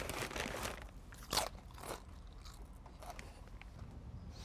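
A person biting and crunching Doritos tortilla chips: a crackly start, then a few sharp crunches, the loudest about a second and a half in, tailing off into quieter chewing.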